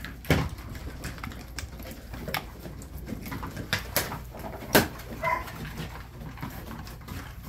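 German shepherd puppies chewing on beef tracheas: scattered sharp cracks and knocks, the loudest a little under five seconds in, with a brief whimper just after it.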